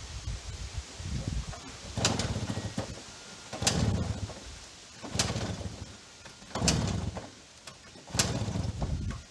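Motorcycle being kick-started over and over, about five kicks roughly every one and a half seconds, each a sharp clack followed by a brief low chug as the engine turns over without catching.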